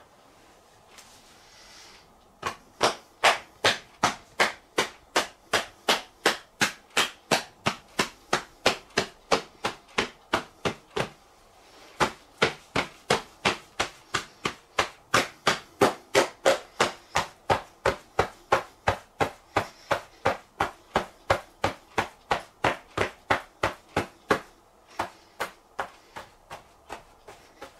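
Self-massage slapping: open palms striking the thighs in a steady rhythm of about three slaps a second, with a short pause about eleven seconds in. The slaps grow softer near the end.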